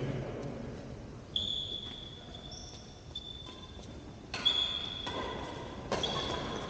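Badminton play in a large hall: sharp racket-on-shuttlecock hits about a second and a half, four and a half and six seconds in. They come with high-pitched squeaks, which fit court shoes on the floor.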